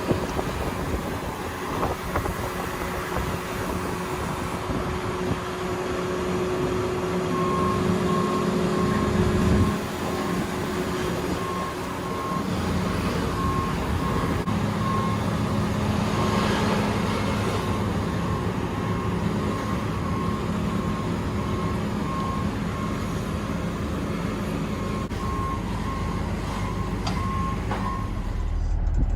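A combine harvester's diesel engine running steadily while it is maneuvered slowly, with its back-up alarm beeping in spells from about a quarter of the way in until near the end.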